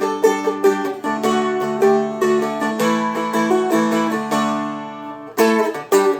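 Seagull Merlin, a four-string fretted dulcimer-style instrument, picked in a quick run of single notes over ringing chord tones. The notes thin out about five seconds in, then a few strokes sound near the end.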